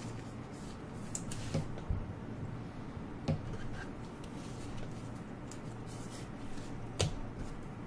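Basketball trading cards being flipped through and handled: light rubbing of card against card and a few soft clicks, the sharpest near the end, over a faint steady low hum.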